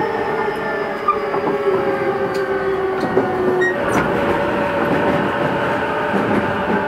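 Running sound inside a JR East E233-series electric train: several steady motor whine tones drift slowly down in pitch as the train slows, switching to a different, higher set of tones about four seconds in, over steady rail rumble with a few faint clicks.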